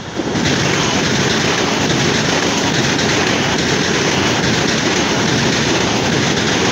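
CPTM 8500-series electric commuter train passing close at speed: a loud, steady rush of wheels on rail that jumps up sharply just after the start as the front cars reach the microphone.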